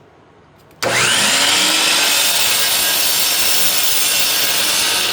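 DeWalt miter saw's motor switched on about a second in, spinning up quickly to a steady whine and running at full speed. Its blade is set to a depth stop for a partial cut into the sled and wood.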